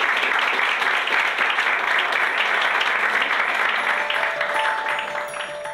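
Audience applauding, dying away near the end as a chiming mallet-percussion tune fades in about four seconds in.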